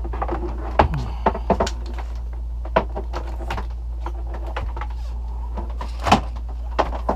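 A watermaker high-pressure hose and its fittings being pulled out and untangled: scattered sharp knocks and clacks, the loudest about six seconds in, over a steady low hum.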